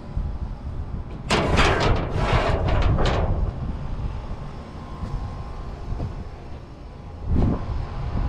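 Low wind rumble on the microphone throughout. About a second in comes a loud, harsh scraping rattle lasting about two seconds, and a shorter one sounds near the end.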